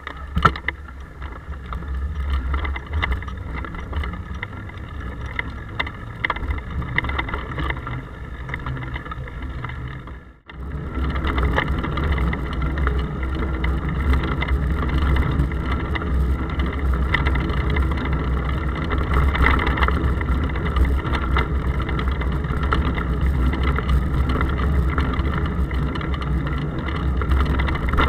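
Ride noise of a bicycle picked up by a handlebar-mounted action camera in its waterproof case: a steady low rumble of road vibration through the mount, with scattered ticks and rattles from the bike. It cuts out briefly about ten seconds in and comes back louder.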